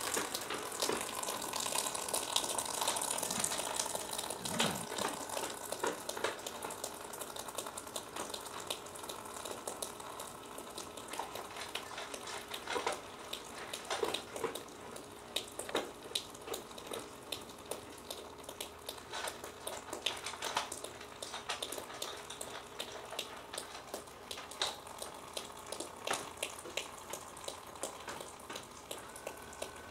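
Water leaking and dripping from an air-conditioning installation, irregular drips one or two a second over a faint hiss of running water that fades over the first several seconds.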